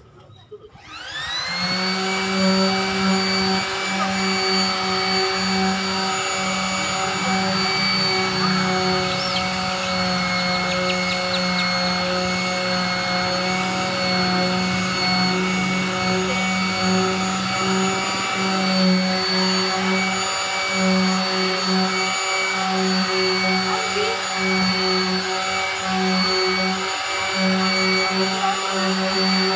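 Electric palm sander switched on about a second in, whining up to speed, then running steadily with a buzzing hum and a high whine as its pad sands body filler on a car door.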